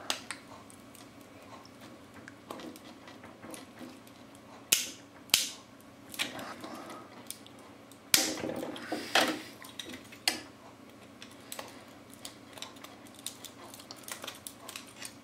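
Hard plastic clicking and snapping as the small printing tabs are pulled and pried off a freshly 3D-printed lightstand part: irregular sharp snaps among lighter ticks from handling the piece.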